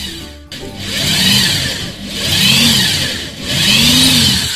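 Corded electric drill's motor revved three times, each time speeding up to a high whine and winding back down.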